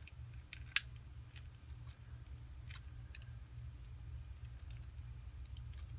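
Scattered light clicks and taps of small repair tools against a Samsung Galaxy Note 4 as its heat-loosened, glued screen is worked free. There is one sharper click a little under a second in, over a low steady hum.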